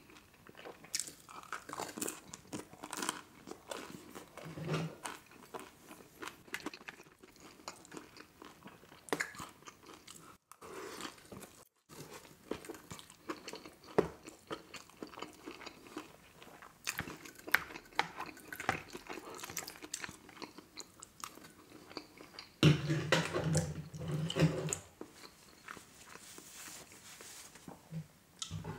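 Close-miked mouth sounds of a man eating pizza and chili cheese fries: chewing, smacking and soft crunching, with a louder stretch of chewing about two-thirds of the way through.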